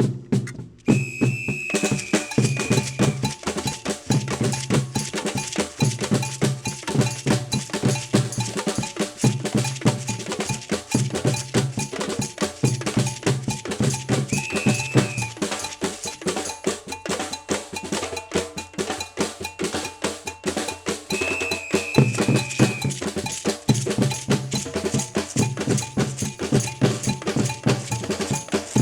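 Brazilian-style percussion music starting about a second in: a fast, dense clicking beat over a repeating low drum pulse, with a high held note sounding three times.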